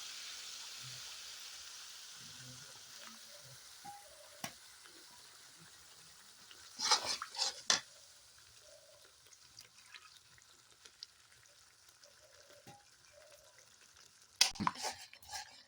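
Spiced masala paste in hot oil sizzling as a little water is added, the hiss strongest at first and dying away. A spatula scrapes and knocks against the pan about seven seconds in and again near the end.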